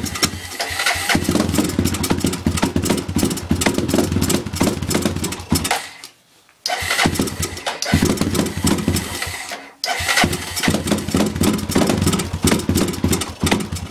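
Freshly rebuilt Honda 300EX single-cylinder four-stroke ATV engine, cold, running loud and uneven through an FMF PowerCore 4 full exhaust. It drops out twice, for about half a second a little before halfway and briefly about two-thirds of the way in, and comes straight back each time.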